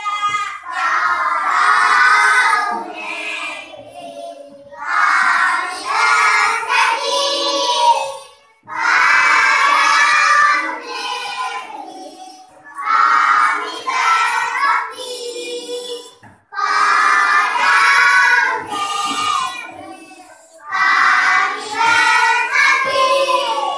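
A group of children singing a song together in unison, in phrases of a few seconds with short breaks between them.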